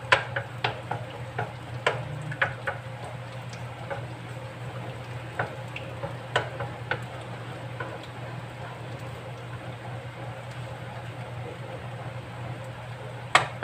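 Wooden spatula stirring melting butter in a metal wok, tapping and scraping the pan in irregular clicks that are more frequent in the first half, over a light sizzle of the butter starting to foam. A steady low hum runs underneath.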